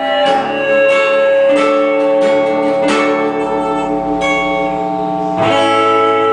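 Instrumental music with no singing: strummed guitar chords left to ring, with a new chord struck about every second and a half.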